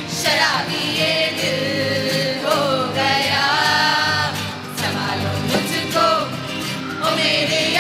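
A mixed group of male and female voices singing together into microphones, with some long held notes partway through.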